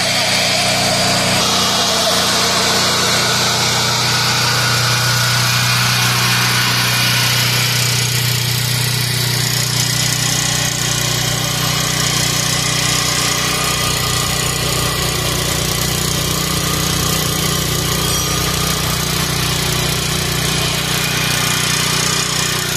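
Engine of a 6500 W portable generator set running steadily under its governor, at a speed set to about 3500 rpm for 60 Hz output.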